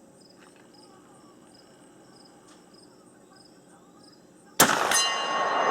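Crickets chirping in a steady, even rhythm, then about four and a half seconds in a single loud 12-gauge slug shot from a Remington 887 pump shotgun, followed by the ringing of the struck steel target.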